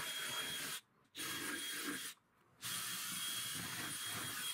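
DeWalt 20V cordless hammer drill running with a steady whine, boring 3/8-inch holes through a door, in three stretches broken by two short gaps of total silence.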